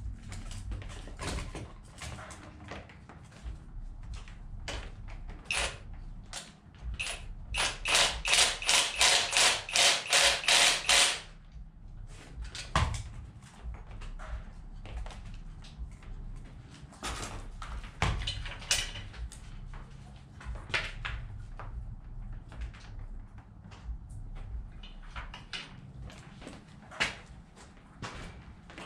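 Hand tools clinking and knocking on metal engine parts during a teardown, with scattered sharp clicks. About seven seconds in comes a loud, rapid run of sharp strikes, about four a second, lasting several seconds.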